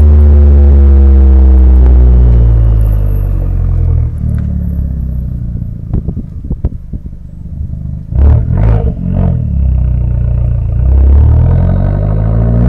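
Fiat 500 Abarth's turbocharged 1.4-litre four-cylinder heard at the exhaust: the engine note falls as the car slows, drops back off throttle with uneven crackles and a few sharp bangs around the middle, then rises again under acceleration near the end.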